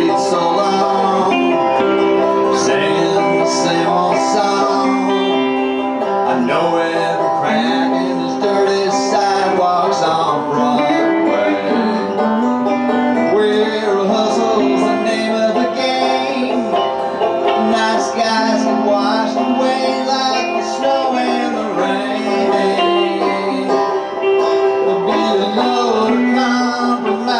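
Bluegrass banjo and electric guitar playing an instrumental passage together, with no singing.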